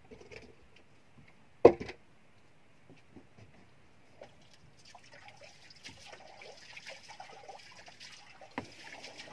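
Water trickling and lapping around a small fishing boat, the water sound growing a little louder from the middle on. A single sharp knock about two seconds in is the loudest sound, with a lighter knock near the end.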